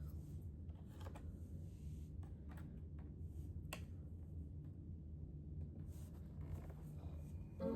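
Faint, scattered light clicks and taps from handling the opened iMac G5's parts, over a steady low hum. Music comes in right at the end.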